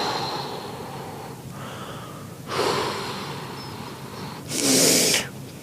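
A person breathing heavily in noisy, gasping breaths: one trailing off at the start, another a little past halfway, and a louder, sharper hissing breath near the end.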